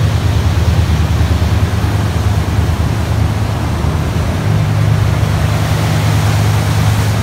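Ocean surf breaking and washing up the beach: a loud, steady rush under a constant low rumble.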